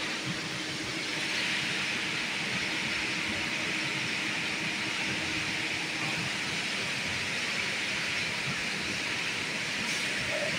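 A steady hiss that grows a little louder about a second in and then holds even.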